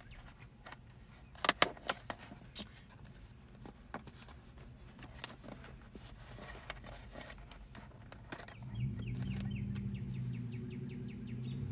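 Clear plastic takeout container being handled and opened, with a few sharp plastic clicks between about one and a half and two and a half seconds in. Near the end a low steady engine hum comes in.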